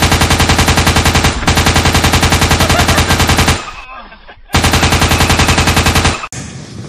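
Machine gun firing in two long, very fast bursts, the first about four seconds long and the second shorter after a one-second pause, used as a sound effect for a large fish thrashing rapidly in a man's arms.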